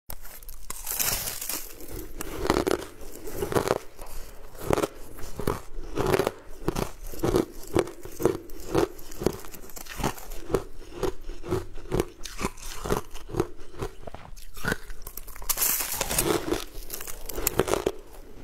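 Close-up crunching and chewing as a hard, crystalline white sweet food is bitten into piece by piece: a steady run of crisp crunches, about two a second.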